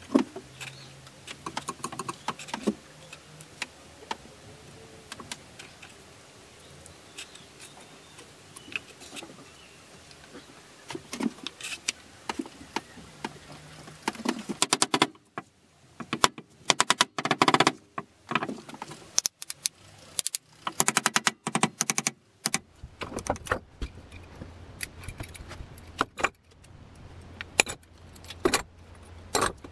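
Clicks, taps and light clinks of small parts handled on a wooden workbench: wooden knife handle scales pushed onto metal pins, then small metal clamps fitted and tightened on the handle. The clicks come in quick clusters through the middle, and a low steady hum joins in the later part.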